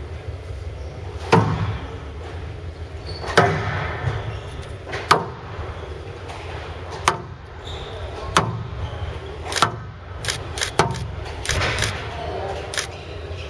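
Squash rally: the ball cracking off rackets and the court walls about every one to two seconds, coming quicker near the end, over a steady low hum.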